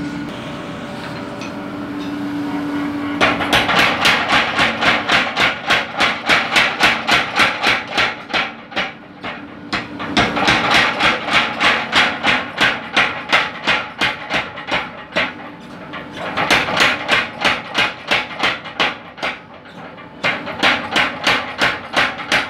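A blacksmith's power hammer forging red-hot steel: rapid, even blows in runs with short lulls, starting about three seconds in after a steady hum.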